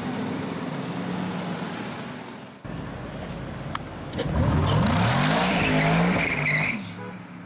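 Mercedes-Benz SLR McLaren's supercharged V8 running steadily as the car drives by. After a cut, a sports car's engine revs hard and accelerates away, its pitch rising in several climbs; this is the loudest part, from about four to nearly seven seconds in, before it fades off.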